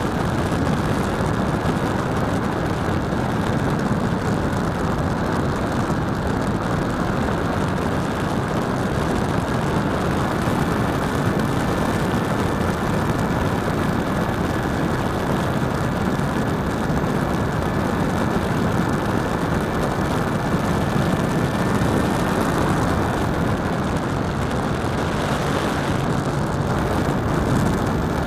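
A flying RC model airplane heard from a camera on its tail plane: steady rushing wind noise on the microphone mixed with the motor and propeller, with a faint steady high whine.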